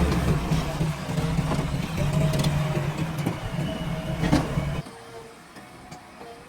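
Heavy construction machine's diesel engine running steadily, with a few sharp knocks, then dropping away abruptly nearly five seconds in.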